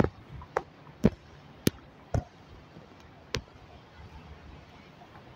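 A series of sharp knocks or taps, about every half second for two seconds, then one more a second later, over a faint steady street background.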